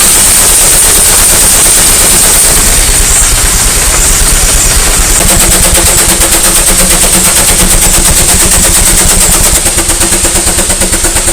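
Steam engine exhaust chuffing in a fast, steady rapid-fire beat. A low steady hum joins about halfway through.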